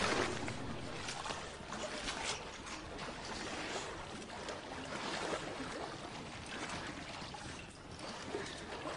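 Shallow water splashing and sloshing irregularly as people crawl through it.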